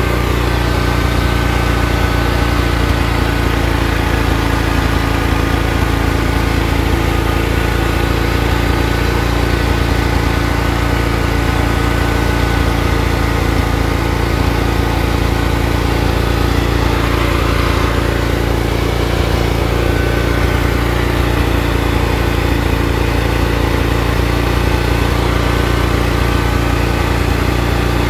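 Lawn tractor engine running steadily at a constant pitch while the tractor drives along, heard close up from the seat.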